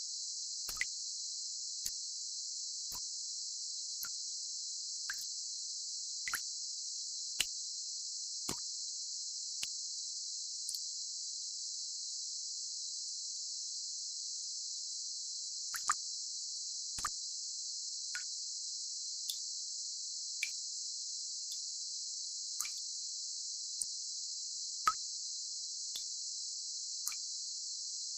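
Tinnitus-masking sound: a steady high-pitched hiss confined to a narrow high band, with sharp edges above and below. Short clicks fall over it about once a second and pause for several seconds partway through.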